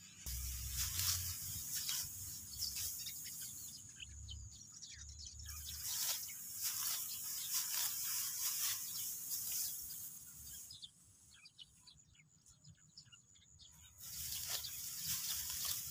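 A steady high insect buzz over the paddy, with crackling rustles of dry rice straw being cut by hand with a sickle. The buzz falls away for about three seconds near the end, then returns. There is brief low wind rumble on the microphone twice early on.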